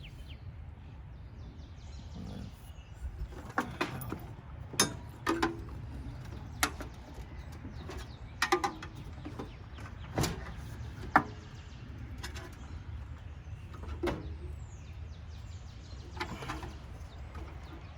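Irregular metal clinks and knocks, some ringing briefly, from parts of a Rinnai tankless water heater being worked loose during dismantling, over a steady low rumble.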